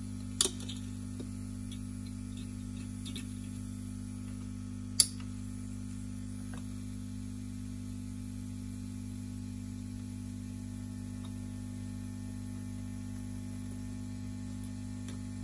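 Steady low electrical mains hum, with two sharp metallic clicks of tweezers and soldering iron against the amplifier's metal parts while desoldering a socket: one about half a second in, a louder one about five seconds in.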